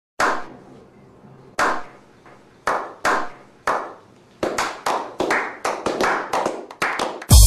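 A small group clapping in a slow clap. Single claps start more than a second apart and speed up into quick, overlapping applause. Just before the end, loud bass-heavy music cuts in.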